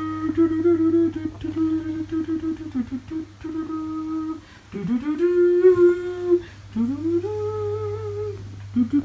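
A child humming a wordless tune in long held notes, swooping up into higher notes twice in the second half. A faint steady low hum runs underneath.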